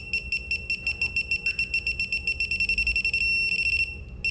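Digital torque adapter beeping as a head bolt is tightened: short high beeps that quicken as the set torque of 105 ft-lb nears, running into a steady tone about three seconds in when the target is reached.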